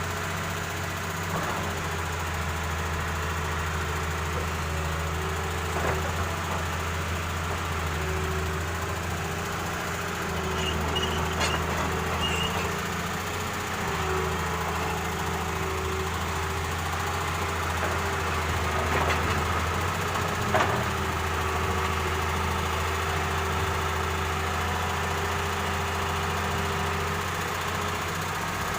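Excavator's diesel engine running steadily with a low, knocking drone while it loads sand. A few short clanks sound over it, the sharpest about two-thirds of the way through.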